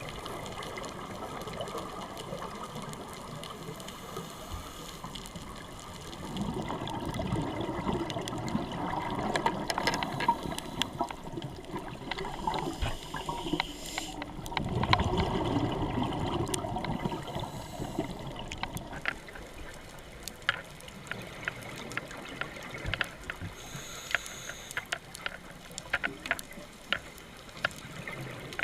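Underwater sound of a scuba dive: a steady watery wash with two louder bursts of exhaled regulator bubbles, and many sharp scattered clicks and crackles.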